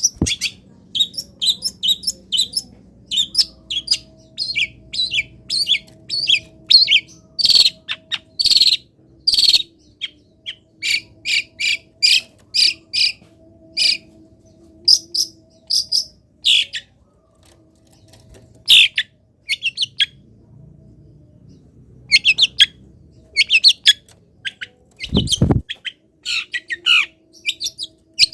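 Long-tailed shrike (cendet) singing: rapid runs of sharp, high chirps and varied phrases, the mimicked song material that keepers call isian, broken by a couple of short pauses. A brief loud low sound comes about 25 seconds in.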